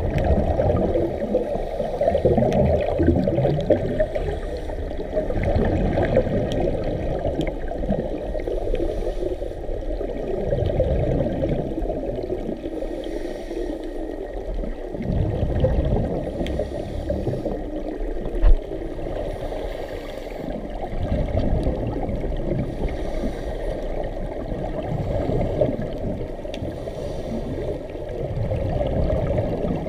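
Muffled underwater rushing and gurgling of scuba regulator exhaust bubbles, swelling in surges every few seconds with the diver's breaths, heard through an action camera's waterproof housing.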